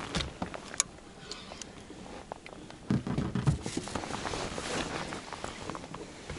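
Scattered knocks, clicks and splashy rustles from a landing net holding a lively pike, handled against the side of an inflatable boat, with a louder stretch of knocking about three seconds in.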